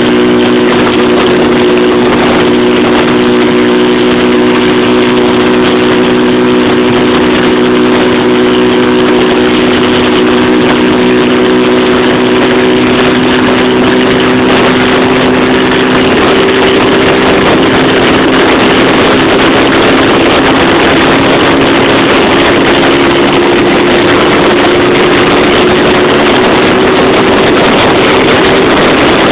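Honda CG 150 Titan's single-cylinder four-stroke engine running hard at high road speed, its pitch slowly rising through the second half as the bike gains speed, over a steady rush of wind.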